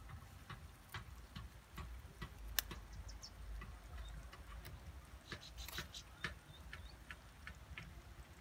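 Irregular light clicks and crackles of twigs and leaves as a hooked frog on a line is pulled out through brush, over a low rumble; the sharpest click comes about two and a half seconds in, with a cluster a little past halfway.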